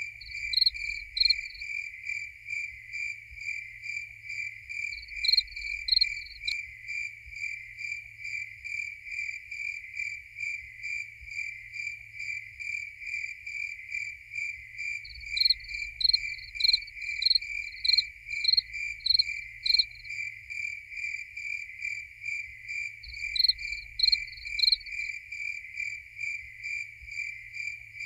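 Crickets chirping: a steady, evenly pulsed chirping runs throughout, and a louder, higher-pitched cricket chirps over it in several short bouts of a few chirps each.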